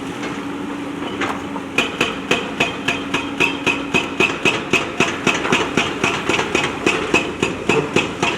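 Hydraulic rock breaker on a JCB backhoe loader hammering stone in a fast, even run of ringing metallic blows, about three to four a second, starting about two seconds in, over the backhoe's diesel engine running.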